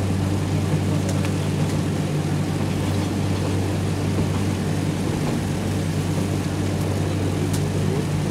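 Running sound of a KiHa 58 diesel railcar from on board: its DMH17H diesel engine drones steadily while under way, with wheel and rail noise and a few faint ticks.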